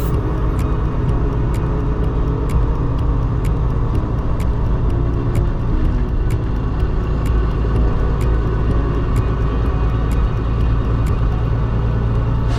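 Heavy haul truck's engine running steadily with a low rumble, with a light, regular ticking about twice a second.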